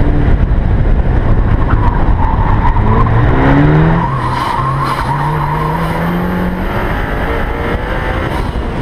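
Sports car driven hard through an autocross course, its engine revs climbing twice and its tyres squealing through the turns.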